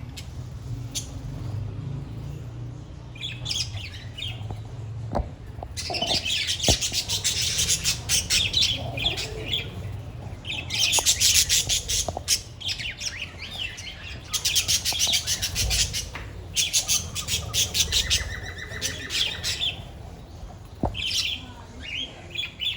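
A flock of budgerigars chirping and squawking in fast chattering bursts with short pauses between them, over a low steady hum.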